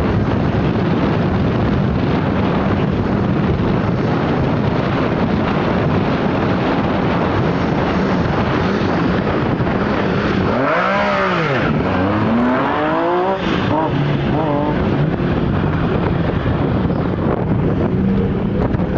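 Rally car engines running, a steady idle, with a rev that rises and falls about ten seconds in, followed by several short rising revs.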